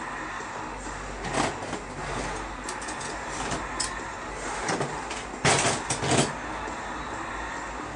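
Clunks and knocks of things being moved about and lifted out of the back of a van, loudest in a quick run of knocks about five and a half seconds in, over steady outdoor background noise.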